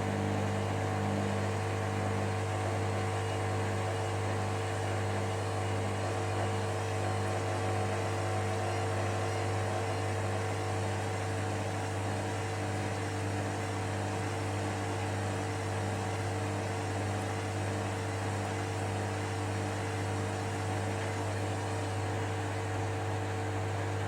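Hoover Dynamic Next washing machine running steadily with a low hum and a soft regular pulsing as its drum turns, on one of repeated attempts to start the final spin. The attempts repeat because a bathmat makes the load hard to balance.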